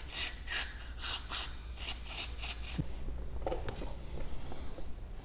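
A quick series of short hissy, scratchy strokes, about three a second, as the motorcycle's front brake caliper is cleaned, dying away after about three seconds into a few faint knocks.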